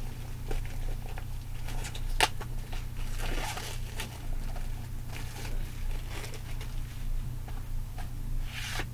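Plastic shrink wrap being peeled and crinkled off a DVD box set, in scattered rustles with one sharp click about two seconds in, over a steady low hum.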